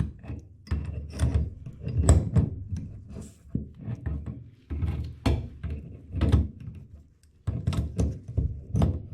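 Irregular knocks, clunks and rubbing as faucet parts are turned and worked into place during a sink faucet installation.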